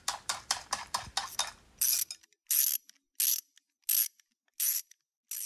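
Mechanical sound effect: a quick run of sharp clicks, about five a second, then six short hissing bursts with a thin high whistle in them, evenly spaced about two-thirds of a second apart.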